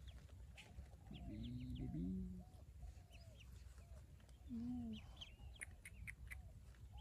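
Pekin ducklings peeping: many short chirps repeated rapidly throughout. A lower call stands out about a second in and lasts over a second, with a shorter one near the middle; these fit the duck hen calling to her brood.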